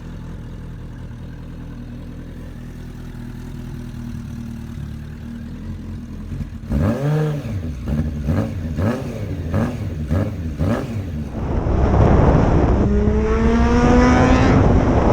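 Suzuki Bandit 600 inline-four engine idling, then revved in a series of quick blips, then pulling away under acceleration with a louder, rising engine note.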